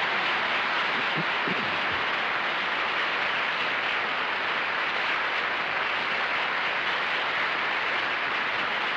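Studio audience applauding steadily, loud and without a break.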